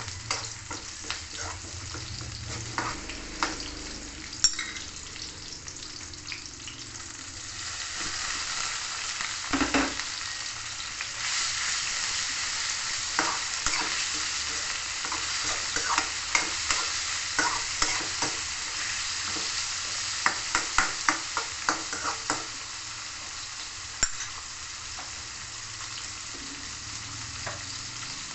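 Raw pork pieces frying with sautéed onion and garlic in a metal wok, a steady sizzle that grows louder about eight seconds in. Quick runs of clicks and scrapes from the pieces being stirred against the wok come through the sizzle, thickest in the middle stretch.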